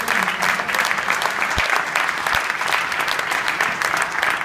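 Theatre audience applauding at the end of a song, a dense steady clapping, with the last held note dying away right at the start and two dull low thuds in the middle.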